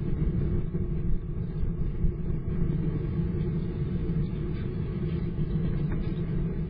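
Steady low rumble with a few faint, sharp clicks scattered through it: a European hedgehog chewing food from a dish, heard close to the microphone.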